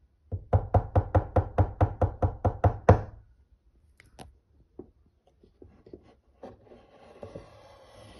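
A quick run of about a dozen sharp, ringing wooden knocks, roughly five a second, that stops abruptly. Then come a few light wooden clicks and taps as the hinged wooden doors of a kamishibai theatre are opened.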